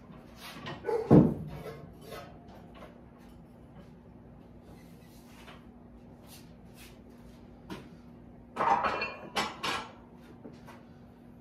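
Steel barbell clanking against a power rack as it is handled and set onto the rack's J-hooks: one sharp ringing clank about a second in, then a cluster of clanks lasting about a second and a half near the end. A steady low hum runs underneath.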